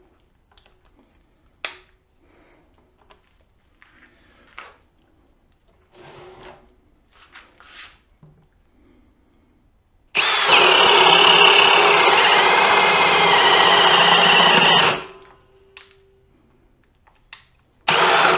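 A Ridgid Octane brushless hammer drill boring a 1.5-inch spade bit through a 4x4 wood post: after some light clicks and knocks, the motor runs loud and steady under load for about five seconds, then stops abruptly.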